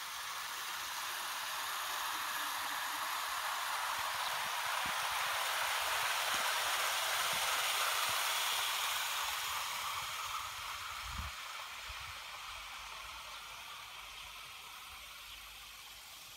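Model train of two A4 steam-outline locomotives and a long rake of coaches running past on garden-railway track: a steady rushing rattle of wheels on rail that swells as the train comes close, peaks about halfway through, and fades as it runs away. A few brief low bumps come about two-thirds of the way through.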